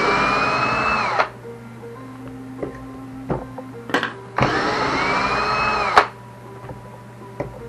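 Cordless electric screwdriver running in two short bursts of about a second and a half each, its whine holding steady and then dropping as it stops, backing screws out of an RC buggy chassis.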